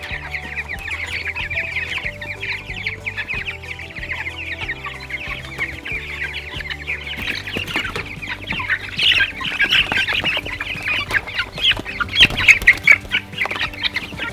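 A brooder full of young Cornish Cross meat chicks peeping loudly and without a break in a feeding frenzy as feed is put in. From about halfway through, the peeping gets louder and is joined by many small knocks and scratches as the birds scramble and claw at the feeder.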